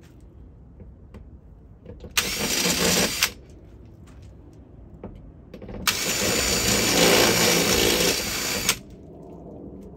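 DeWalt cordless drill boring through the Sprinter van's steel roof panel to widen a pre-drilled hole. It makes two runs: a short one of about a second, then a longer one of about three seconds.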